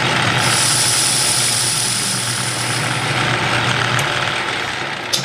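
Metal lathe running through a final cutting pass on a round stuffing-box workpiece: a steady motor drone with a high cutting hiss for roughly the first three seconds. A sharp click comes near the end, and the sound begins to die away.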